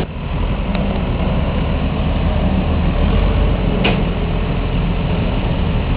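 Loud, steady low engine rumble with a hiss over it, and a brief click about four seconds in.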